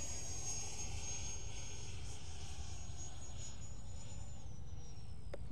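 80mm electric ducted fan of an FMS Integral RC jet in flight, a high steady whine with a fainter lower tone, both dropping in pitch about four seconds in. Under it is a low rumble of wind on the microphone.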